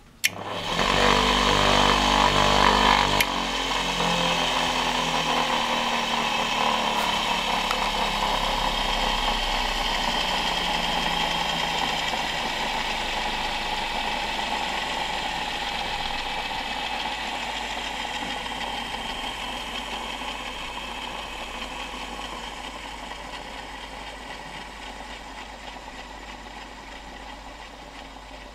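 Homemade mini wood lathe's electric motor starting about half a second in and running at speed, spinning a wooden blank at around 2400 rpm. Loudest for the first three seconds, then a steady whine that slowly grows quieter.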